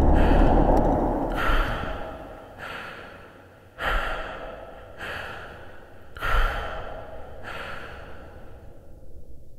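A person breathing heavily in a steady rhythm, one breath about every second, every other breath louder. A low rumble under it fades away over the first few seconds.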